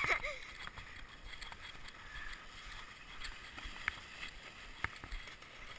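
Faint scuffing and crunching in snow, with a few light knocks from a foam sled being handled.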